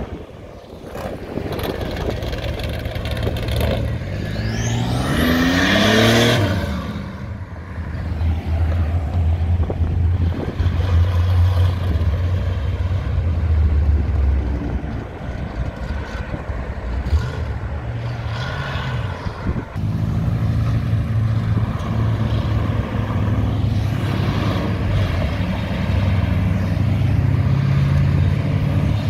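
Show cars and muscle cars driving past one after another, engines running. About five seconds in, one accelerates with rising revs, the loudest moment.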